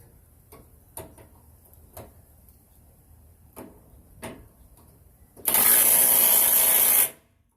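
A few light metallic clicks, then a battery-powered impact wrench runs in one loud burst of about a second and a half near the end, tightening a suspension bolt, and stops abruptly.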